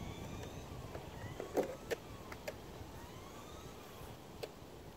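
Electric RC car motor whining faintly, its pitch rising and falling as the car speeds up and slows, with a few sharp clicks.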